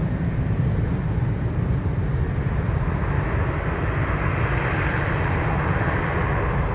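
Cessna 408 SkyCourier's twin Pratt & Whitney PT6A turboprops at takeoff power, a steady roar with a deep rumble underneath that grows louder a few seconds in.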